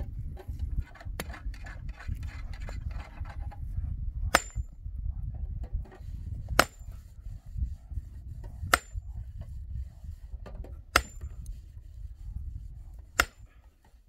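Sledgehammer striking a large rock, five heavy blows about two seconds apart, each a sharp crack with a brief metallic ring.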